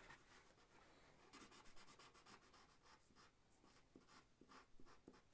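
Faint sound of Sharpie markers drawing on printer paper: many short strokes in quick succession.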